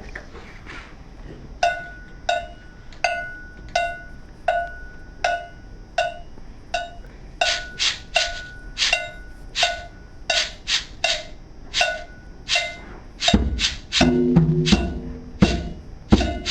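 Children's drum circle playing: a steady beat of sharp woody clicks, about one every 0.7 seconds, with more strikes filling in between them halfway through. Louder, deeper drum hits join near the end.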